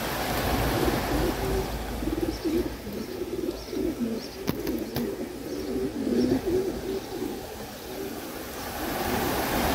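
Several racing pigeons cooing, their short low calls overlapping one another, with two sharp clicks about halfway through.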